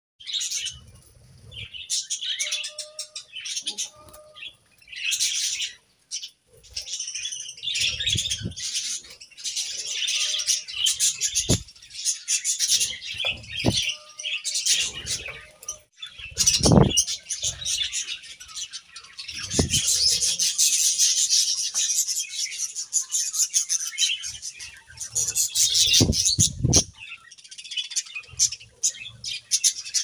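A flock of budgerigars chattering and chirping without a break, a dense warble of many birds at once. Now and then wings flap and there is a short low thump, about nine times, loudest a little past the middle and again near the end.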